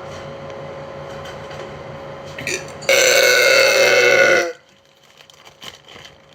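A woman's single long, loud burp, lasting about a second and a half and starting about three seconds in.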